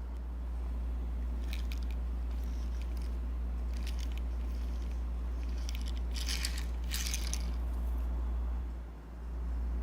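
Light clicks and rustling from a small diecast toy car being handled, loudest in a cluster about six to seven seconds in, over a steady low hum.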